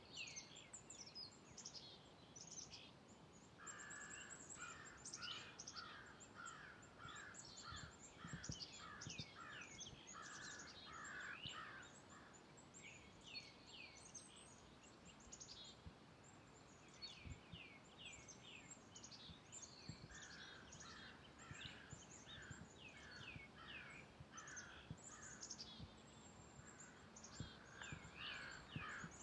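Faint woodland birdsong: several birds chirping, with many quick high, falling chirps throughout. Twice a lower call is repeated evenly for several seconds at a time.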